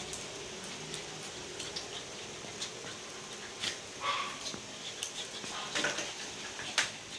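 Two dogs play-fighting: scuffling with scattered short clicks of claws on a tile floor, and one short vocal sound from a dog about four seconds in.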